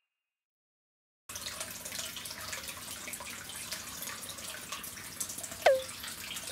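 Hot-spring water running and trickling into a wooden foot bath, starting suddenly after a second of silence. Near the end a single short, loud chirp falls sharply in pitch.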